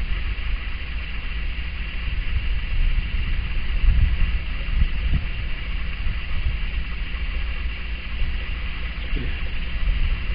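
Steady low rumble of the Ratel ZT-3's idling diesel engine, with a hiss higher up.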